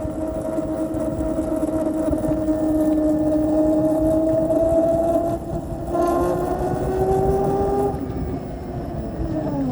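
Ather 450X electric scooter making a whine while running, the 'bad sound' its owner cannot explain. It is a steady tone that slowly climbs, drops and breaks about five and a half seconds in, climbs again, and falls away near the end, over a low rumble.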